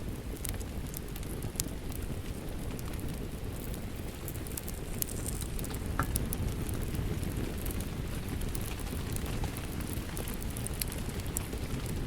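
Fireplace crackling with scattered sharp pops, one stronger pop about six seconds in, over a steady wash of falling rain.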